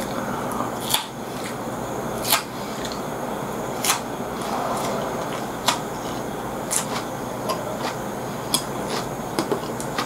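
Close-up eating sounds: sharp wet mouth clicks and smacks, roughly one a second and irregular, as a mouthful of food is chewed. A steady background hiss runs under them.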